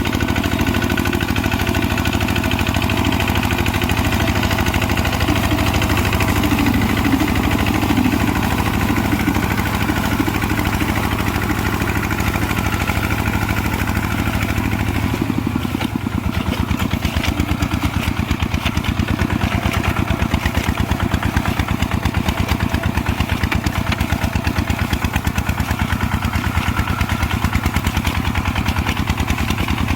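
Kubota RT140 single-cylinder diesel engine running steadily. About halfway through its note changes and the separate firing pulses become more distinct.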